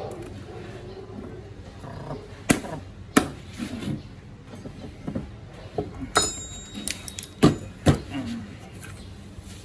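Scattered sharp knocks and clanks of hand tools and parts being handled during car repair work, one of them ringing briefly about six seconds in, over a steady low hum.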